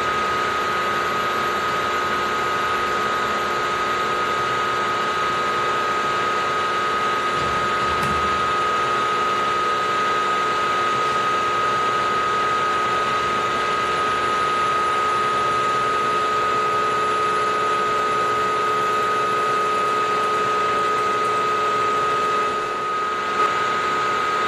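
Milling machine spindle running at a steady speed with a constant high-pitched whine, as a twist drill bores into a metal block. A brief dip and a single click come near the end.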